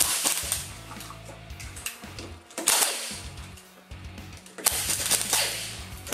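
Impact wrench running in three short bursts, spinning the lug bolts off a car's front wheel.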